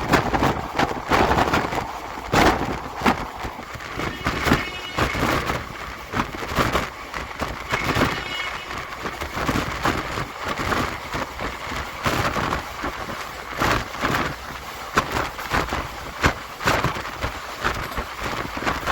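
Moving passenger train heard from inside a coach at the window: a steady rumble with irregular, sharp clacks of the wheels over the rails.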